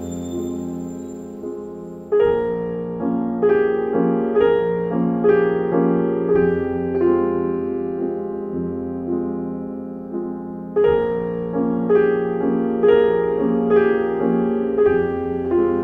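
Piano music: an even pattern of struck notes that grows fuller and louder about two seconds in, and again near eleven seconds.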